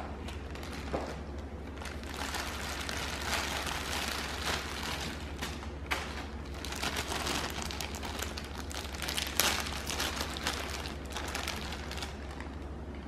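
Clear plastic packaging crinkling and crackling in the hand as a plush fish toy is unwrapped, busiest from about two seconds in until near the end.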